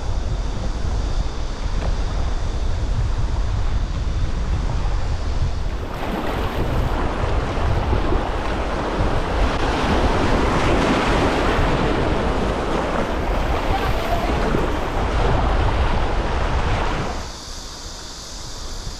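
Wind buffeting the microphone over running river water, with a louder rush of water from about six seconds in that drops away near the end.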